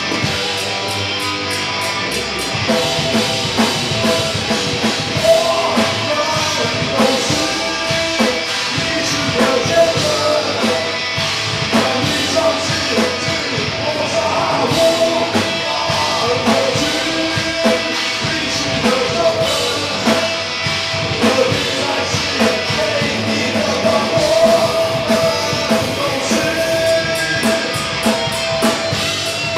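Thrash metal band playing live: distorted electric guitars and a drum kit at full volume, with vocals over the top.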